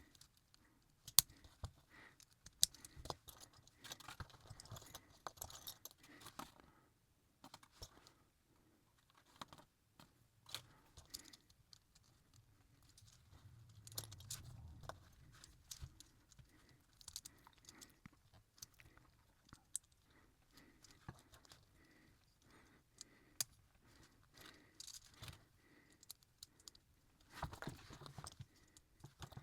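Faint, scattered clicks and rustling as small plastic model-kit pieces are handled and snapped together.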